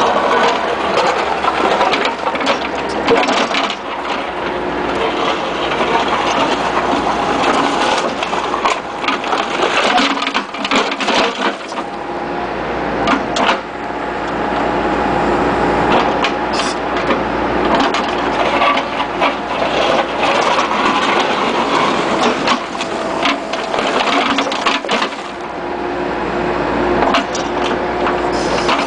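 Bobcat skid-steer with a 709 backhoe attachment at work: the engine and hydraulics run steadily under load, with many clanks and cracks as the bucket breaks up and digs out blacktop.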